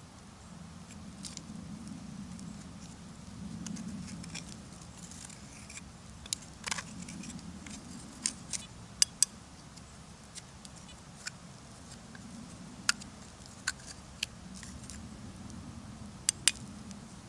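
Digging and rummaging through forest soil: a low, uneven rustle and scrape with a dozen or so scattered sharp clicks and clinks, some in quick pairs, mostly in the second half.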